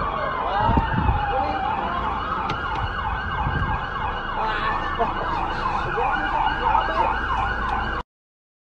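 Police car siren sounding a slow falling-and-rising wail that switches to a rapid yelp about three seconds in. It cuts off suddenly near the end.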